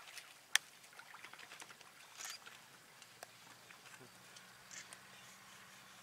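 African wild dogs drinking and stepping about in wet mud: faint, irregular wet clicks and patters, with a sharper click about half a second in. A faint low hum joins about four seconds in.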